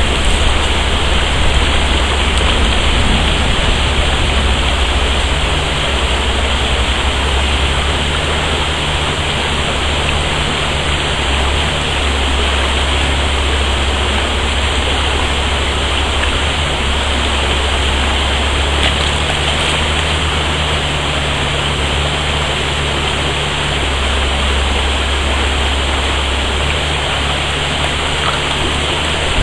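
Small stream rushing over rocks in a shallow riffle: a steady, unbroken rush of water.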